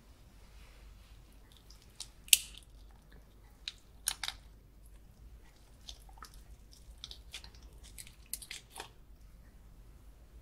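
Close-up chewing of garlic butter prawns: scattered sharp, wet clicks and crackles, the loudest about two seconds in.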